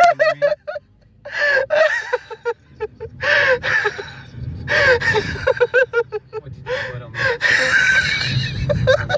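A person laughing hard in repeated fits, with gasping breaths between the bursts.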